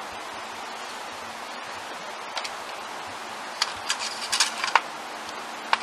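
Light clicks and taps from the engine-oil dipstick being worked in its metal tube, a run of them about three and a half seconds in and one more near the end, over a steady background hiss.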